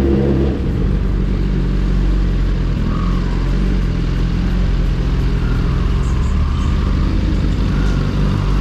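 Suzuki GSX-R1000R's inline-four engine through an M4 full exhaust system, its note dropping in pitch about half a second in, then running at a steady, lower engine speed.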